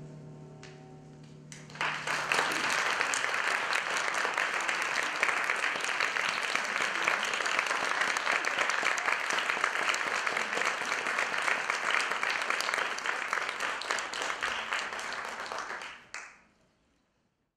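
The last held note of the music dies away, then a theatre audience breaks into applause about two seconds in and keeps clapping steadily, until the sound is cut off shortly before the end.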